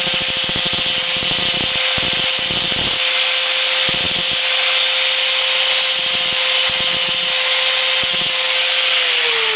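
Angle grinder running with a steady whine, its wheel grinding the underside of a steel lawn mower blade in short passes to take off burrs hanging down from the edge. Near the end it is switched off and the whine falls as the wheel spins down.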